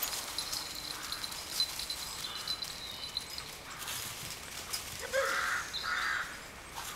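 Dogs' paws running over dry leaf litter, a faint scattered rustling and patter, with two short harsh calls about five and six seconds in.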